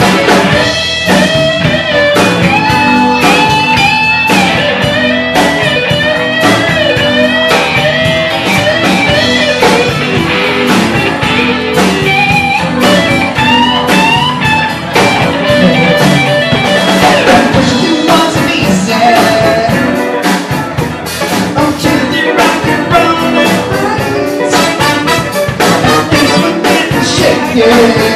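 Live band playing a blues-style song: drum kit and keyboard backing a man singing into a microphone.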